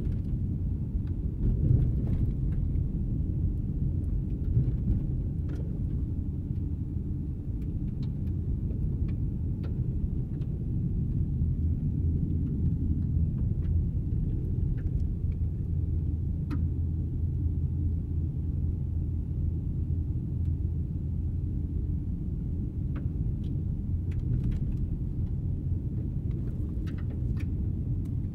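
Car on snow tires driving along an icy, snow-covered road: a steady low rumble of engine and tyre noise, with scattered faint ticks.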